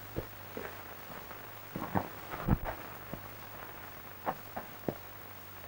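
Scattered faint clicks and a few soft knocks, the loudest about two and a half seconds in, over the steady low hum of an old film soundtrack.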